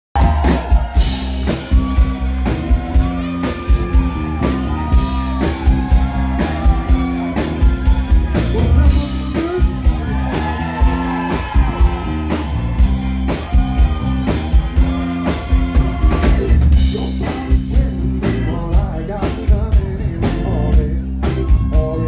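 Live country-rock band playing: a drum kit keeping a steady beat under bass and electric guitars, with a wavering lead melody over it.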